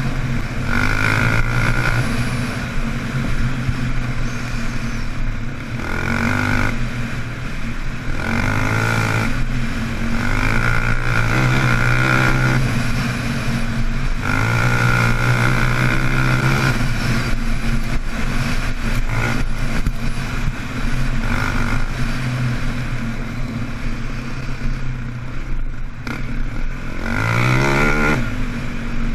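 KTM 525 XC quad's single-cylinder four-stroke engine under way, the throttle opened and closed again and again so the pitch climbs and drops, with a sharp rising rev near the end. Wind noise runs under it.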